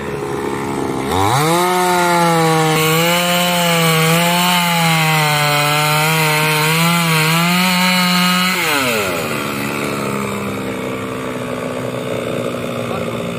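Two-stroke petrol chainsaw revving up about a second in and cutting into a thick log, its engine pitch wavering under load for about seven seconds. The engine then drops back to a steady idle.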